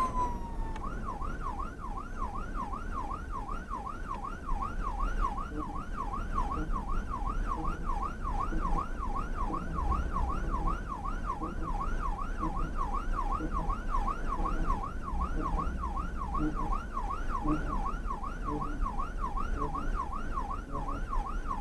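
Emergency vehicle siren in yelp mode: a fast, even up-and-down wail repeating about two and a half times a second, heard from inside the vehicle's cab over low road rumble.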